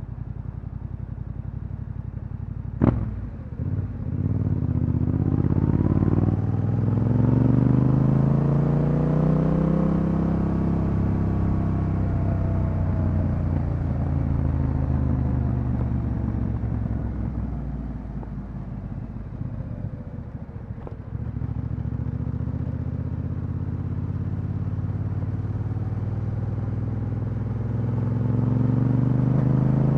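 Yamaha Ténéré 700's parallel-twin engine through an Akrapovic exhaust: a sharp click about three seconds in, then the engine pulls away with its pitch climbing, eases off and settles to a steady run, and rises again near the end.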